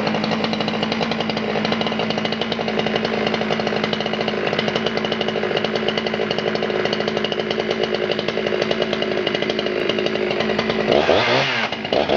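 Husqvarna 272 XP chainsaw's 72cc two-stroke engine idling steadily, then revved up and back down briefly near the end.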